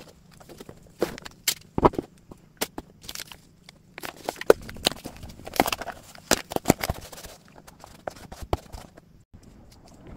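Small cardboard box being closed and sealed with kraft paper tape by hand: an irregular run of sharp taps, scrapes and crinkles as the flaps are pressed shut and the tape is smoothed and slapped down onto the cardboard.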